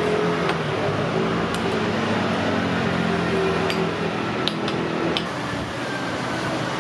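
Steady background noise of a busy street or market, with a low engine-like drone and a few light, sharp clinks.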